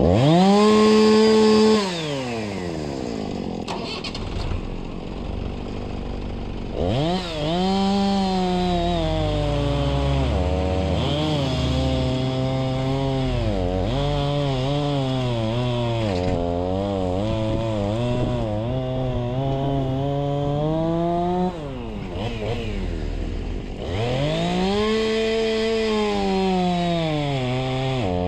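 Chainsaw revving high at the start, then cutting through a log for about fourteen seconds, its pitch sagging and wavering under load. It revs up again near the end.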